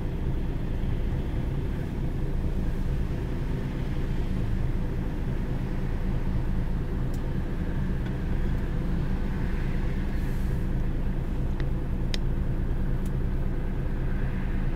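Engine and road noise of a vehicle driving along, heard from inside the cab: a steady low rumble with an engine hum, and a few light ticks in the second half.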